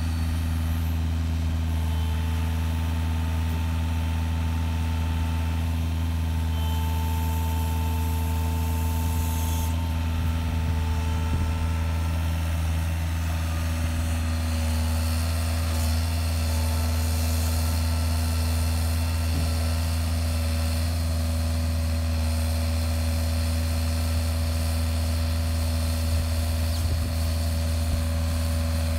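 Hitachi 5.5-tonne mini excavator's diesel engine running steadily while its hydraulics work the five-finger grapple and rotator handling a timber pole, with a faint higher whine that shifts now and then.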